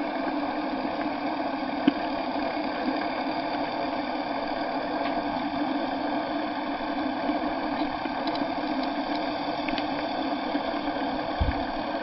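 A steady motor hum, like an engine idling, with a sharp click about two seconds in and a brief low thump near the end.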